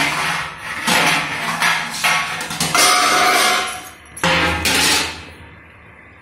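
Metal kitchenware clattering and scraping: a steel spatula and a steel lid knocking and rubbing against an iron kadai, in a string of loud noisy clatters with some ringing that die away about two-thirds of the way through.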